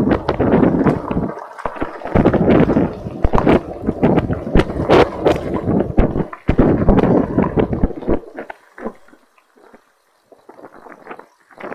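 Wind buffeting the microphone and a bicycle rattling and knocking as it rolls fast downhill over rough ground; it drops to a few scattered clicks about eight seconds in.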